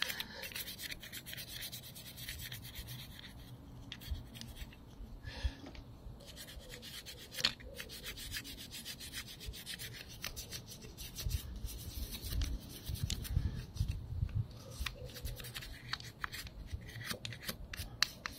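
Faint workshop handling sounds from working on a motorcycle rear brake caliper: scattered small clicks and knocks of parts and tools, with soft rubbing throughout.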